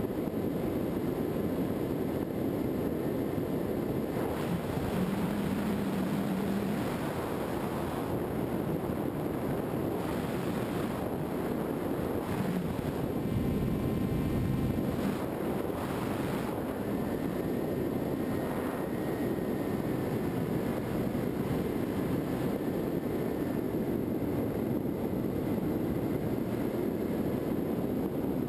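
Skywalker FPV model plane in flight, heard from its onboard camera: a steady rush of wind over the airframe with the drone of its electric motor and propeller, with a faint high whine.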